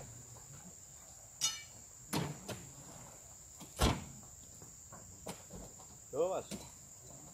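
A few sharp knocks and heavy thuds as oil palm fruit bunches are worked with a hooked pole and thrown up onto a truck, the loudest thud about four seconds in. A steady high-pitched insect buzz runs underneath.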